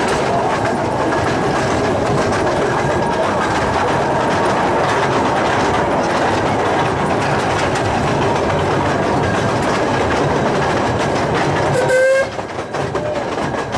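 457 mm gauge miniature steam train running with passengers aboard: a steady rumble and clatter of the cars' wheels on the track. About twelve seconds in there is a short whistle toot, and the running noise drops back just after.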